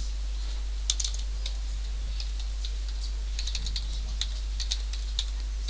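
Computer keyboard typing: key clicks in short, irregular runs as an email address is entered, over a steady low hum.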